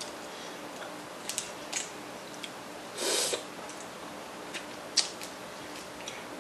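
Crab leg shell being cracked and picked apart by hand: scattered sharp crackles and clicks. About three seconds in there is a short, louder wet sucking sound as meat is eaten from the shell.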